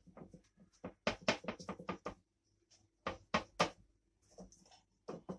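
A filled piece of dough is pressed by hand onto an upturned perforated stainless steel sieve, which knocks under the pressure. The knocks come in two quick clusters, about a second in and again about three seconds in.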